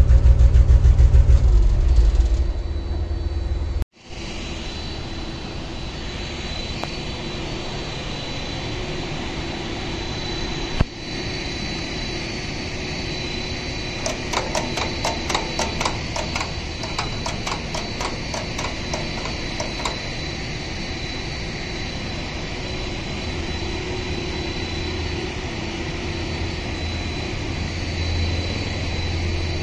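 Carry deck crane's engine running with a heavy pulsing throb, cut off abruptly a few seconds in. It gives way to a steady machine drone with a thin high whine, broken by one sharp knock and, in the middle, a run of rapid clicks for several seconds.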